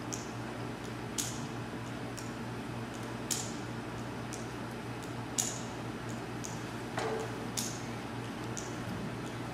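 Sharp, short clicks about every two seconds, with a few fainter ticks between them, over a steady low hum. About seven seconds in there is a duller knock, like a small wooden stool being picked up off a hard floor.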